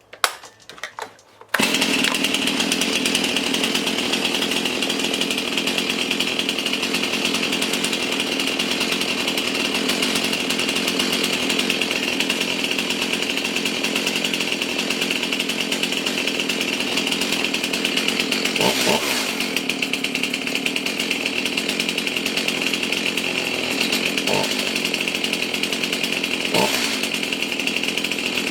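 Stihl MS271 chainsaw's 50.5 cc two-stroke engine starting about a second and a half in and then running steadily while its low-speed mixture screw is tuned, with a few brief changes in note late on. The low jet needed a little tweaking to make the new saw run right.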